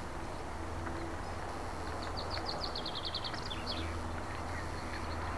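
Steady rushing noise of a bicycle ride along a canal towpath, with wind on the microphone. About two seconds in, a small songbird sings a quick run of high chirping notes for about two seconds.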